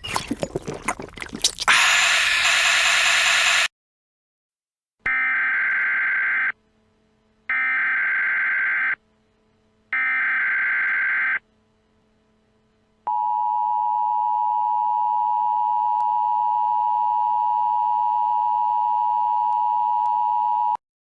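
A loud harsh noise burst in the first few seconds, then the start of an Emergency Alert System broadcast: three short bursts of the SAME header data tones, about a second and a half each with a pause between them. These are followed by the two-tone EAS attention signal, a steady tone held for about eight seconds that cuts off suddenly.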